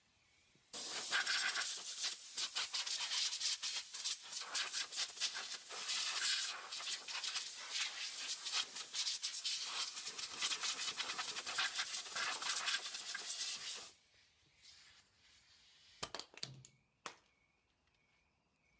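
Compressed air blowing the old brake dust out of a front brake caliper: a rushing hiss that flutters on and off for about thirteen seconds, then stops. A few light clicks follow near the end.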